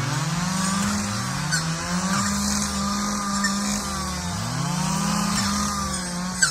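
Brush cutter engine revving up and down about three times, its pitch rising and falling in long sweeps. A sharp click right at the end.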